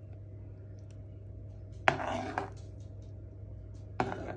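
A metal spoon clinks against a bowl of thick white sauce, about two seconds in and again near the end; the first clink is followed by a brief wet stir through the sauce. A steady low hum runs underneath.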